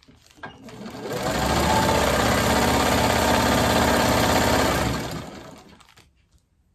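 Vintage black sewing machine running as fabric strips are stitched: it builds up over about a second, runs steadily for several seconds, then slows and stops about a second before the end.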